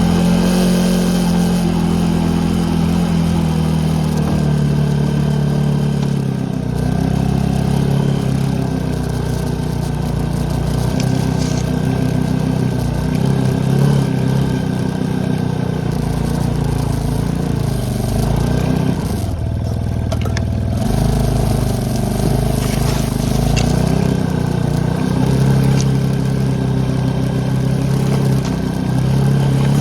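ATV engine running under way, its pitch rising and falling as the throttle opens and eases off, with a brief let-off about two-thirds of the way through.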